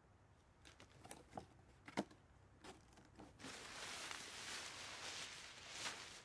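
Nylon fabric of a deflated airblown inflatable being handled: a few sharp crinkles and clicks in the first half, the loudest about two seconds in, then a steady rustle from about three and a half seconds in as the fabric is pulled open and spread out.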